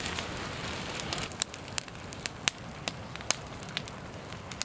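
Wood campfire crackling, with irregular sharp pops about two a second over a steady hiss.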